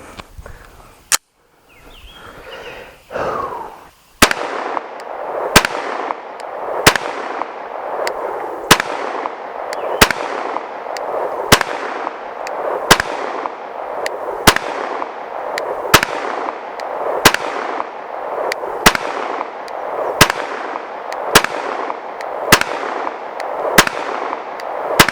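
CZ 75B 9mm pistol being fired in slow, deliberate single shots, about sixteen, roughly one every second and a half, starting about four seconds in.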